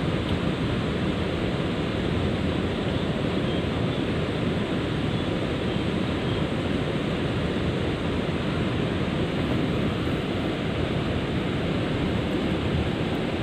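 Steady rushing of river water, typical of water pouring over a weir, unbroken throughout.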